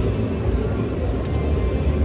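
Music with a heavy bass beat.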